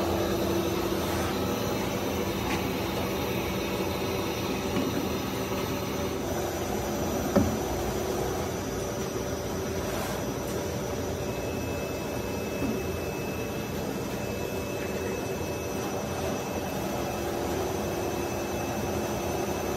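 PVC pipe extrusion machine running: a steady mechanical hum with a few steady tones in it, and one sharp knock about seven seconds in.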